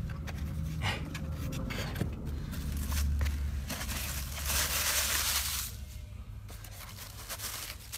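Styrofoam packing tray and plastic wrapping being handled, with irregular scraping, squeaking and crinkling as parts are pressed back into the foam. A louder stretch of rustling comes about halfway through. A steady low hum runs underneath.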